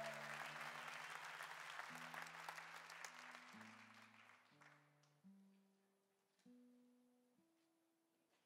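Applause fading out over the first few seconds while an acoustic guitar is picked softly, about seven single notes and small chords each left to ring.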